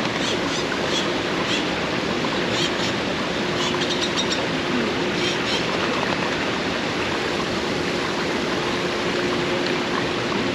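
Steady rush of flowing water from a landscaped waterfall and stream, with short high chirps over it in the first half.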